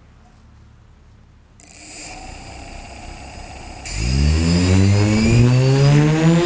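Multirotor drone's brushless motors and propellers starting up with a sudden high-pitched electronic whine about a second and a half in. About four seconds in they spool up, the hum rising steadily in pitch and loudness as the throttle is raised for lift-off.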